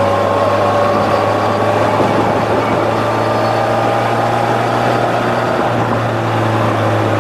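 Polaris Slingshot three-wheeled roadster cruising at a steady speed: a constant low engine drone with a slowly drifting pitch, under a rush of wind and road noise in the open cockpit.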